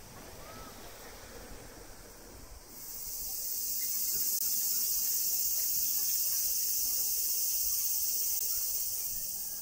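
Cicadas calling in a steady, high-pitched, sizzling drone that swells in about three seconds in and fades toward the end.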